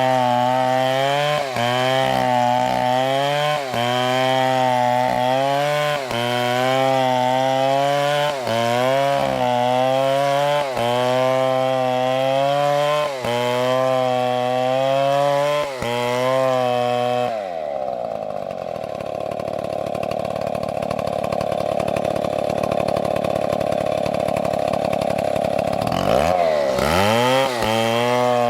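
Chainsaw cutting through a tree trunk, its engine note sagging and recovering under load about every second and a half. About two-thirds of the way through the revs drop away and it runs slower and steadier, then it is revved back up and goes into the cut again near the end.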